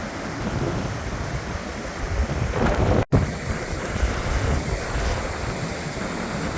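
Ocean surf washing on the beach, with wind buffeting the microphone as a low rumble. The sound swells a little just before three seconds in, then cuts out for an instant.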